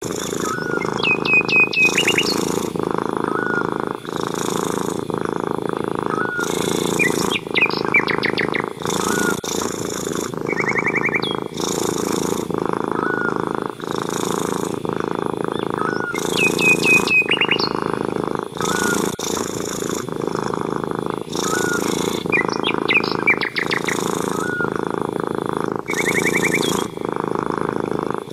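Domestic tabby cat purring steadily, the purr swelling and easing in even cycles about a second long. A bird repeats a short high trill every five or six seconds, with smaller chirps between.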